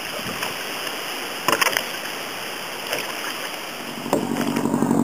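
Kayak paddles dipping and splashing in calm river water, with a few sharper splashes or knocks about a second and a half in. Near the end an engine starts up and runs at a steady, pulsing idle.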